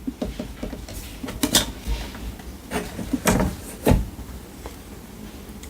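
The plastic scanner lid of an HP Smart Tank all-in-one printer being lifted and shut again, with a handful of clicks and knocks, the loudest about three and four seconds in.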